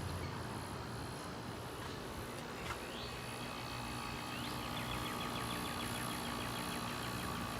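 Friedrich Kühl window air conditioner running steadily, its LG rotary compressor and fan giving a continuous hum. From about three seconds in, a high, rapidly repeated chirping sounds over it.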